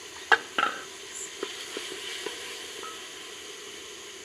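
Food sizzling as it fries in oil in a sufuria (metal cooking pot), with two sharp knocks of a utensil against the pot near the start and a few light clicks after.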